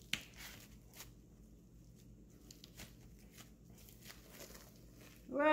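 Faint crinkling and light ticks of a plastic-wrapped bamboo sushi mat being rolled and pressed around a sushi roll, with one sharper tap just after the start. Right at the end a loud, drawn-out animal call begins, its pitch sliding slowly down.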